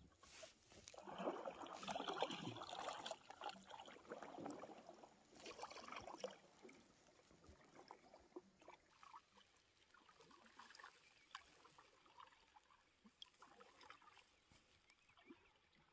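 Faint splashing and dripping of a kayak paddle in the water, a few strokes, louder in the first few seconds and fading to quiet trickles.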